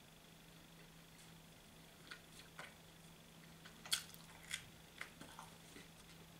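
Faint mouth sounds of a person biting into and chewing a slice of pizza: a scatter of soft clicks and smacks, the sharpest about four seconds in, over a low steady hum.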